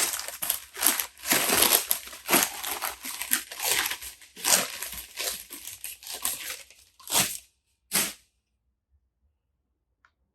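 Packaging crinkling and tearing as a film camera is unwrapped by hand: a dense run of rustles that thins out to two last crinkles about eight seconds in.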